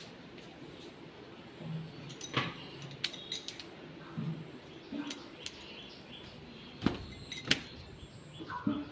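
A handful of light, sharp clicks and clinks spaced a second or two apart, small hard objects being handled around the house, with a few faint low thumps between them.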